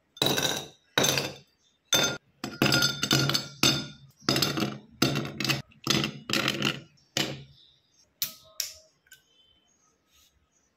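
Glass clinking and knocking: about twenty sharp clinks with a short ring after each, coming two or three a second for about seven seconds, then a few fainter ones.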